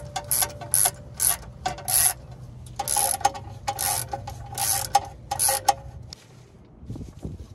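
Hand ratchet wrench clicking in repeated short strokes as it turns a ball joint bolt on a Volvo 740's front suspension; the clicking stops about six seconds in.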